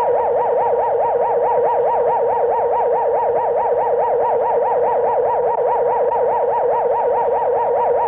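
Synthesized electronic warbling tone, a sound effect, sweeping rapidly up and down in pitch about five or six times a second at a steady, loud level.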